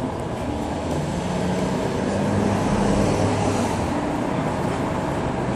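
City street traffic: a passing motor vehicle's engine hums low, swelling louder for a couple of seconds past the middle over a steady traffic din.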